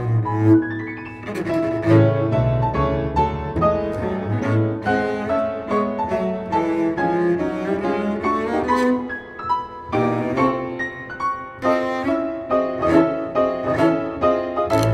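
Double bass and piano playing a march together, the bass carrying busy melodic lines over piano chords.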